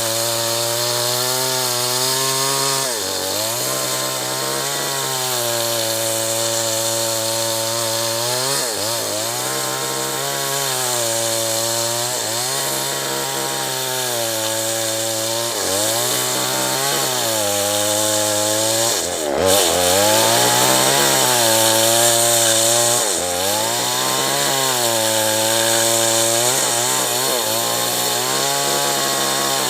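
Two-stroke chainsaw running at high revs while cutting acacia wood. Its pitch drops each time the chain bites into the wood and climbs back as it frees, every few seconds, with the deepest dip about two-thirds of the way through.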